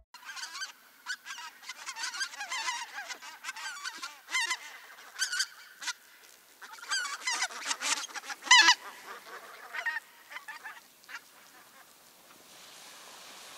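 A flock of wild geese flying over, many honking calls overlapping, thinning out and dying away about eleven seconds in.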